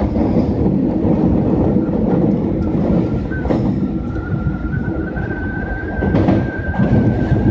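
Osaka Metro 22 series subway train running, heard from inside the car as a steady rumble with wheel-on-rail noise. About three seconds in, a thin electric whine joins and rises slightly in pitch.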